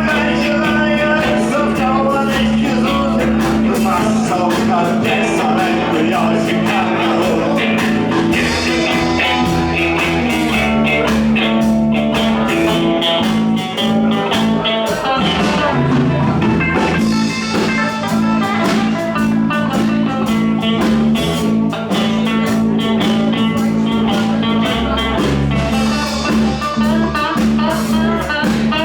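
Live band playing a bluesy instrumental passage, a guitar carrying the melody over steady bass notes.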